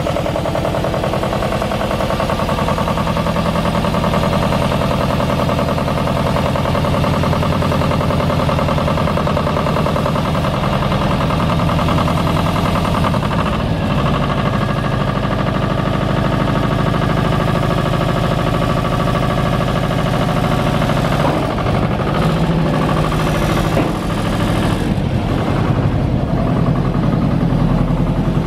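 Diesel engine of a Goldoni Transcar 28RS utility tipper, a small Lombardini unit, running steadily throughout. Its note shifts a little past halfway through and again later as the machine is driven.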